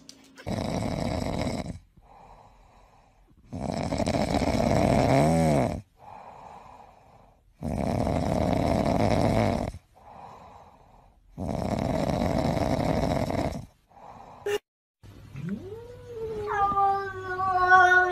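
A sleeping cat snoring: four long, loud snores about every four seconds, with softer breaths between them. Near the end a cat gives one long meow that rises and then holds steady.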